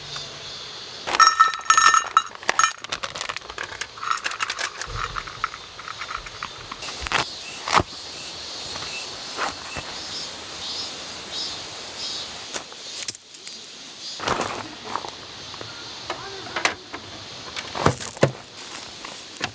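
Metal objects clinking and jangling with a ringing tone about a second in, followed by scattered knocks and clicks of things being handled.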